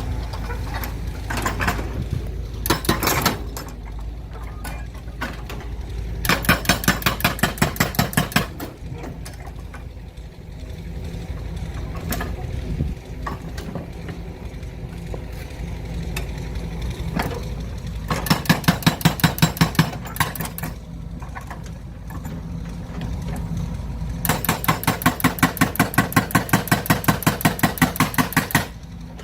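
Rapid, evenly spaced mechanical clicking, about five clicks a second, in three runs of a few seconds each (the last and longest near the end), over a steady low rumble.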